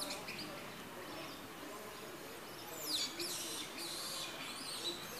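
Small birds chirping, with a flurry of quick, high chirps from about three seconds in.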